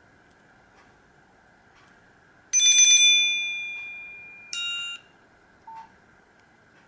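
A Nokia C3-01 mobile phone playing one of its built-in alert tones through its loudspeaker: a bright, bell-like chime that opens with a fast trill and fades over about two seconds, then a second shorter chime that cuts off after half a second, followed by a faint short beep.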